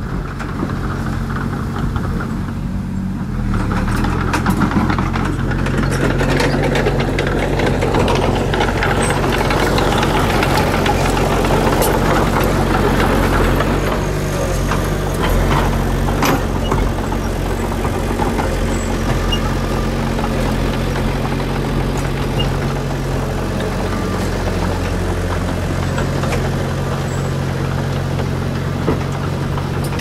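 Mitsubishi BD2 small crawler dozer's diesel engine running steadily under load, with brush and dry grass crackling under the blade and tracks and scattered sharp snaps.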